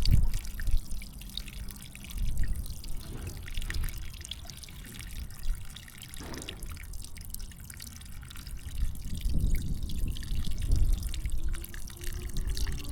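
Water dripping and trickling into a flooded irrigation valve pit, over a low rumble that rises and falls.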